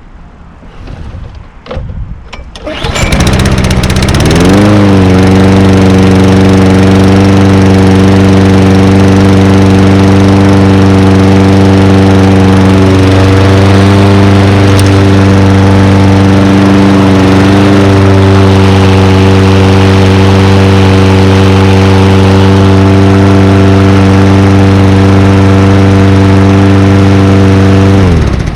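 Toro Recycler 22-inch push mower's engine starting about three seconds in, climbing quickly to speed and then running steadily. Near the end it is shut off, its pitch dropping as it winds down.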